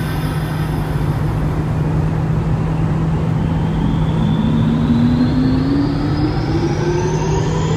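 Toyota Aqua hybrid's four-cylinder engine droning steadily at near top speed, heard from inside the cabin over loud road and wind noise. About halfway through, a whine starts and climbs steadily in pitch.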